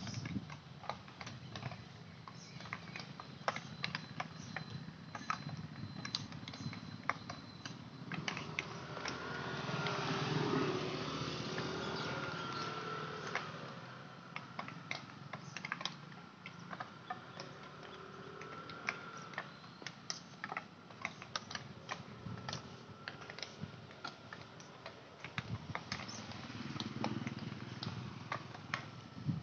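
Field hockey sticks striking balls during practice drills: many sharp, irregular, distant clacks. A louder swell of noise rises and falls between about eight and fourteen seconds in.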